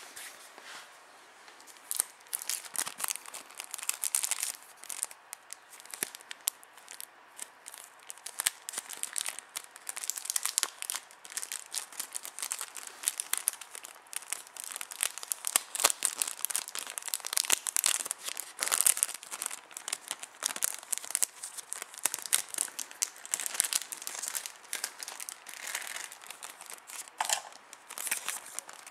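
Clear plastic packaging sleeve crinkling and rustling in irregular bursts as a replacement camcorder LCD screen is unwrapped from it by hand.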